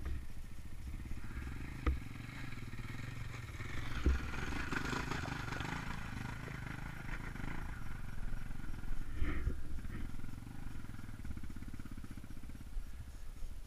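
KTM enduro motorcycle engine running at low revs on a rough, rocky track. It picks up a little in the middle, and there are a few sharp knocks from stones under the wheels.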